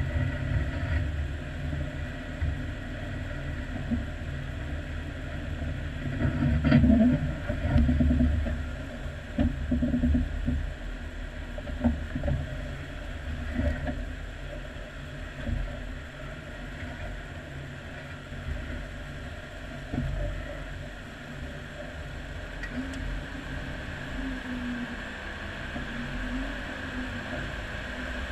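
Off-road Jeep's engine running at low speed as it crawls along a rough snowy trail. The low rumble swells a few times, loudest about seven seconds in, with a few short knocks.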